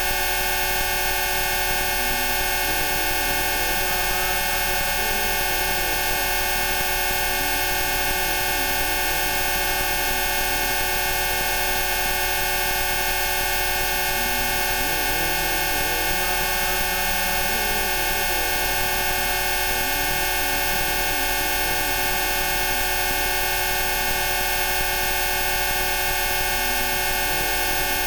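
A dense chord of many steady electronic tones, Rife frequencies held unchanged from a low hum up to a high whistle. Fainter tones drift slowly up and down underneath.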